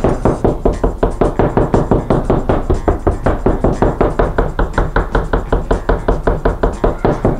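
Knuckles knocking rapidly and evenly on a plasterboard wall, about five knocks a second, to locate a timber stud behind it. The knocks sound hollow over the cavity and less hollow over the stud.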